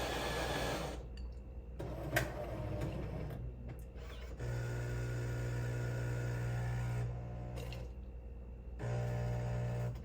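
Jura Z10 super-automatic coffee machine working through the start of a cold brew cycle. A whirr stops about a second in, then comes a sharp click. A steady motor hum then runs for about three seconds, stops, and starts again near the end.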